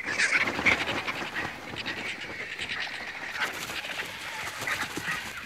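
Vultures squabbling over a kill: a jumble of harsh, scratchy calls, loudest in the first second.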